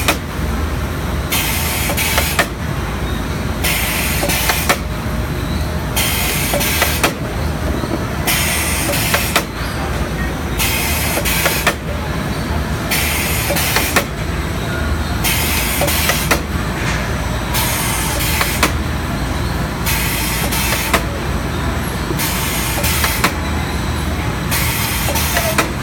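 STEEN ST 828 drumstick skinner and poultry processing line machinery running steadily, with a low hum and a high hiss that cuts in and out about every two seconds. Scattered sharp clicks run through it.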